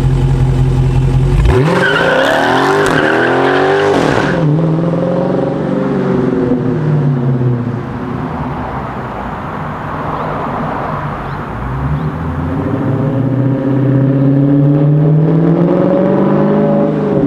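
2016 Dodge Charger Scat Pack's 392 Hemi 6.4-litre V8 idling, then launching hard about a second and a half in, with tyre squeal for about three seconds while the engine revs up and drops in pitch at each upshift. The engine note then fades as the car pulls away, and grows louder again in the second half with further rises and falls in pitch.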